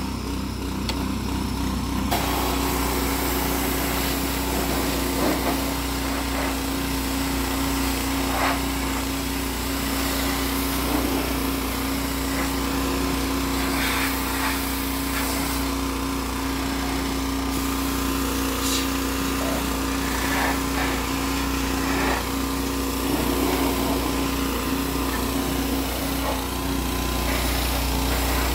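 Pressure washer running steadily, its water jet hissing against a truck cab. The steady hum and the spray both pick up about two seconds in.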